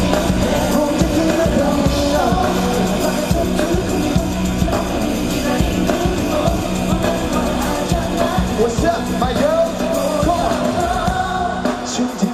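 Live pop song with singing over a steady dance beat, played loud through concert sound.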